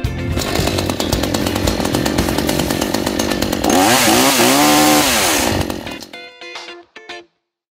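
Scheppach petrol chainsaw's two-stroke engine running, revved up and back down about halfway through, then stopping about six seconds in. A short music sting follows.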